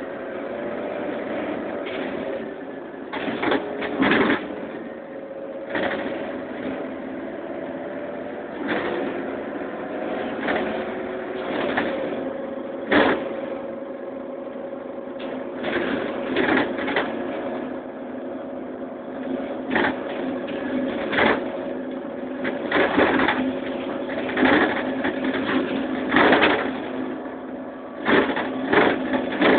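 Cabin sound inside a Karosa Citybus 18M articulated city bus: a steady engine and drivetrain hum, with frequent short rattles and knocks from the body and fittings.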